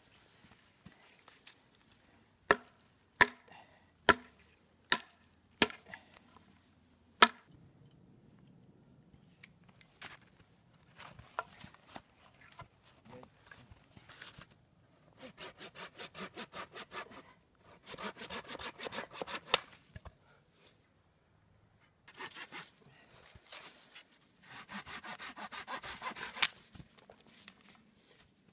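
About six sharp hatchet chops into wood a few seconds in, then a folding saw cutting through a wooden pole and sticks in fast, even strokes, in four runs of a second or two each.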